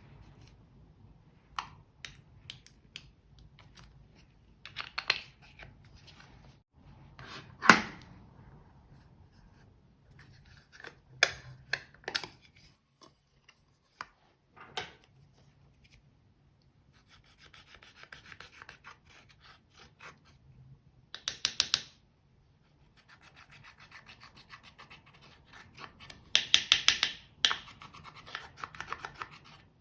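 Slime being squeezed and stretched by hand, giving sticky clicks and pops, with a louder pop about eight seconds in. In the second half come stretches of rapid fine crackling.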